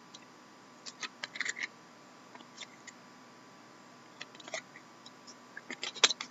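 Trading cards being handled and flipped through: scattered light clicks and scrapes of card stock, in small clusters, with a sharper click near the end.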